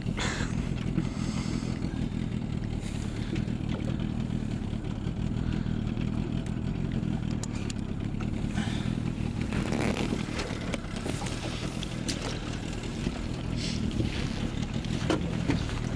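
Boat's outboard motor idling steadily, with scattered light clicks and clatter.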